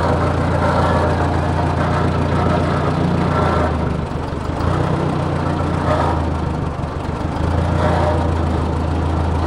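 Old gasoline tractor engine running steadily as the tractor is driven slowly, with the choke pushed in. The engine note dips slightly about four seconds in and again near seven seconds.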